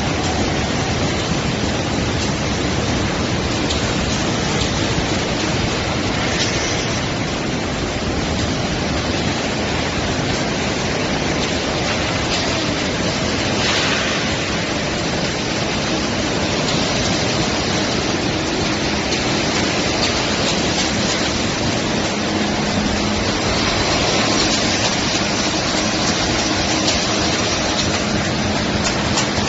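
Corrugated carton-box production machinery running steadily, a dense, even mechanical noise, with a quick run of regular clicks near the end.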